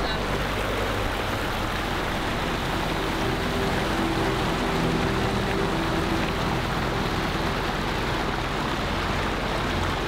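Water rushing and splashing steadily over the rock ledges and small falls of a newly built garden stream and waterfall.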